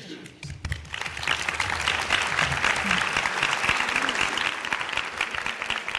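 Audience applauding: many hands clapping together, building up within the first second and starting to thin out near the end.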